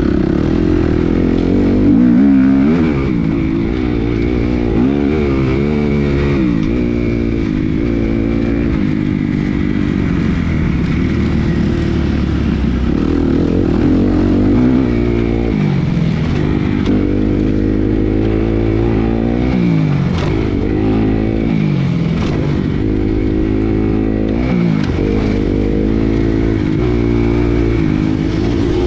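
Kawasaki KX motocross bike's engine under riding load, its pitch climbing and dropping over and over as the throttle is worked around a dirt track.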